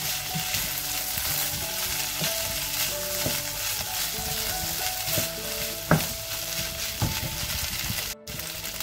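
Rice and sautéed vegetables sizzling in a non-stick frying pan while being stirred with a wooden spatula, with a couple of sharp knocks of the spatula against the pan.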